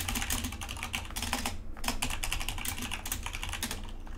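Fast typing on a computer keyboard: a quick, steady run of key clicks with a brief pause about a second and a half in.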